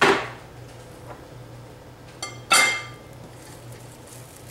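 Metal baking pan knocking against a tiled countertop twice, about two and a half seconds apart. The first knock is dull; the second, just after a small click, rings briefly with a metallic tone.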